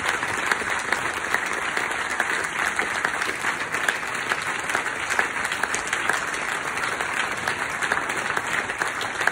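Audience applauding: many hands clapping steadily, with no break.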